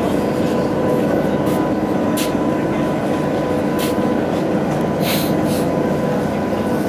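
A ferry's engine running with a steady drone and a constant hum, with a few short hisses about two, four and five seconds in.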